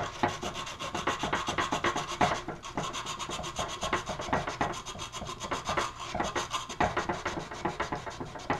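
Sandpaper rubbed by hand in rapid back-and-forth strokes, smoothing off a small burr on a kit part.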